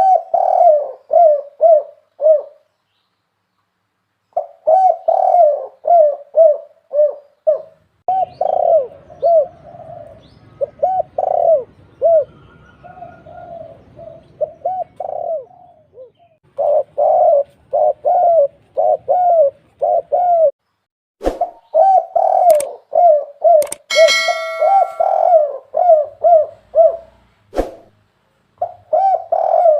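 Spotted doves cooing over and over in short phrases of quick coos, with brief pauses between the runs: a tekukur lure call used to draw doves in for hunting. Two sharp clicks and a short ringing tone sound in the last third.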